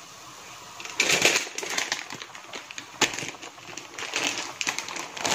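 Pot of tomato broth at a rolling boil, bubbling and popping irregularly, with sharper pops about one and three seconds in.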